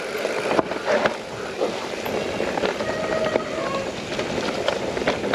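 Mountain bike rolling over a muddy forest trail: steady tyre and wind noise with scattered knocks and rattles.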